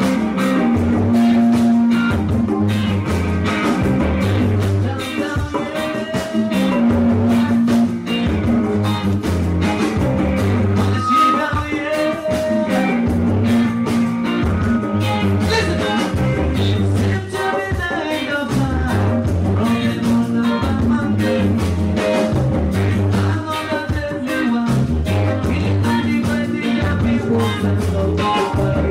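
Live band playing a song: a bass line repeating every three seconds or so over drums and percussion, with singing.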